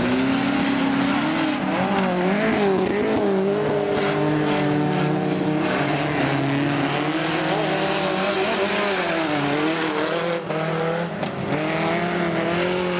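Engines of several folkrace cars racing on a gravel track, revving up and down so that their overlapping notes keep rising and falling.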